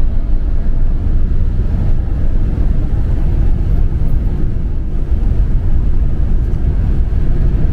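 Inside a motorhome's cab at highway speed: the steady low rumble of the engine and the tyres on a wet road.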